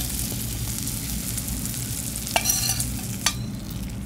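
Chopped pancetta sizzling in a hot frying pan, browning and rendering its fat, with two sharp clicks of a utensil against the pan about two and a half and three and a quarter seconds in. The sizzle thins a little near the end.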